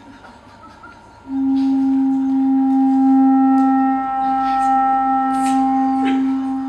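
A long, low wind-instrument note from the stage music, entering about a second in and held for about five seconds, with higher held tones layered above it.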